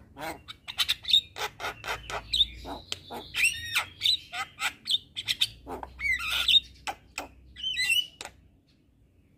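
Javan myna (jalak kebo) singing: a fast run of harsh chattering notes, squawks and whistled glides that stops about eight seconds in.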